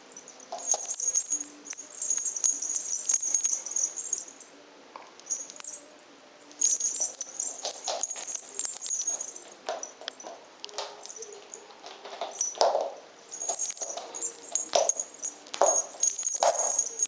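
Small bells on cat toys jingling in bursts as kittens bat and chase them, with short pauses between the bursts.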